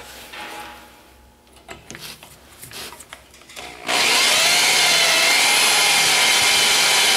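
Electric drill boring into a metal mounting plate with a dull, cheap twist bit. After a few seconds of small handling clicks, the drill starts about four seconds in and runs steadily with a whine that wavers in pitch as the bit bites.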